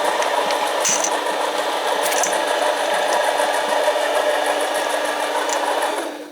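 Harbor Freight 7x10 mini lathe running steadily under power, then switched off near the end and spinning down to quiet.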